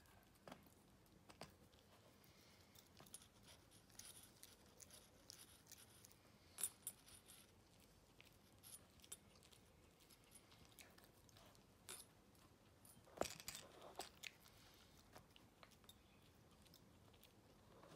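Maltese puppy, teething, gnawing on a knit plush toy: faint, irregular soft clicks and crackles of teeth working the fabric, with a louder one about seven seconds in and another past thirteen seconds.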